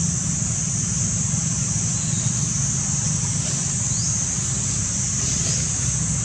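Steady outdoor background noise: a continuous high-pitched drone over a low rumble, with a few faint short chirps.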